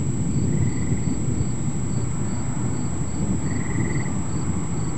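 Crickets chirping about two to three times a second, with two short buzzing insect trills, over a steady low rumbling noise that is the loudest sound.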